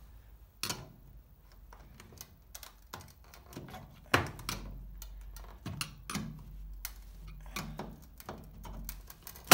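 Flat-blade screwdriver levering at the chrome headlight trim ring of a Rover P5B: scattered metal clicks and short scrapes as the blade works round the ring to prise it off. The sharpest clicks come about a second in and about four seconds in.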